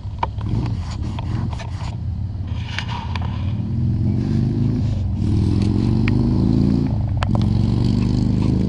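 A motor vehicle's engine accelerating, its pitch rising three times with a sudden drop in between, as when it shifts up through the gears. Under it a steady low rumble of wind on the microphone, and a few clicks of handling.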